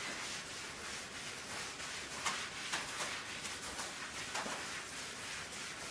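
Paper towel wiping over a stainless steel surface: a soft, quiet rubbing hiss with a few faint strokes.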